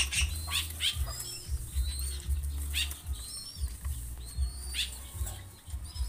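Young zebra doves beating their wings in repeated soft flaps as they jostle each other to feed from a hand. Short high bird chirps come now and then, over a low steady hum.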